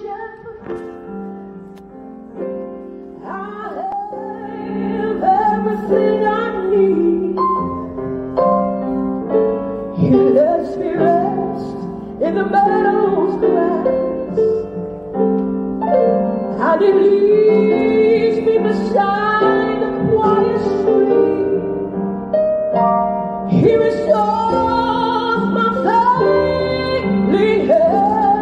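A slow song, a singer over piano, building in loudness over the first few seconds.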